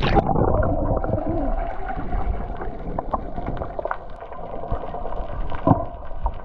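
A splash as the microphone goes under the sea surface, then muffled underwater sound with scattered clicks.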